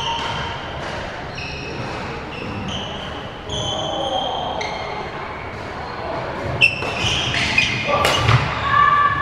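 Badminton play in a large, echoing sports hall: sneakers squeaking on the wooden court floor, then sharp racket hits on a shuttlecock, one about six and a half seconds in and the loudest near eight seconds.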